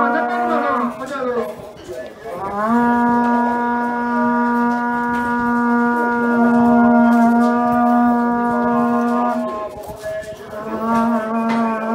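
Horagai (conch-shell trumpet) blown in long held notes. One note ends about a second in; the next swoops up in pitch and holds for about seven seconds; a third begins near the end.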